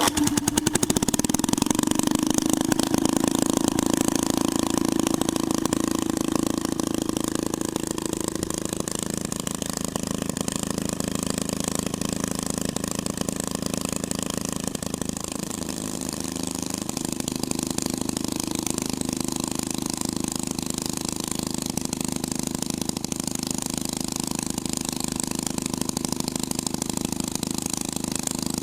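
Twin-engine hot rod idling with a steady, even engine note. The note comes in abruptly at the start and wavers briefly about halfway through.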